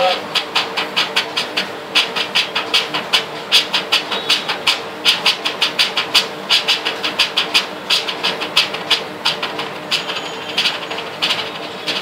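Train wheels clattering over rail joints in a fast, uneven run of clicks, about four a second, over a steady hum.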